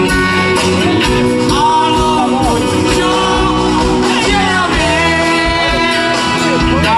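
Live pop-rock band music with a man singing lead into a microphone over amplified acoustic guitar and band.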